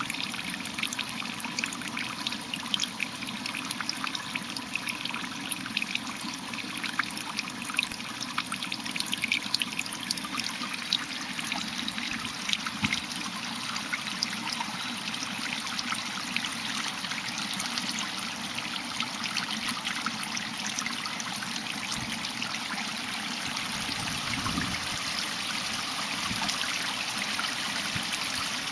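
Running water pouring into a pond, a steady trickle dotted with many small splashes.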